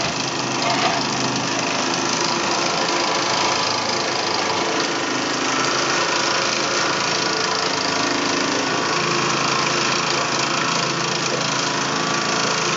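Mamod toy stationary steam engine running, with a steady hiss.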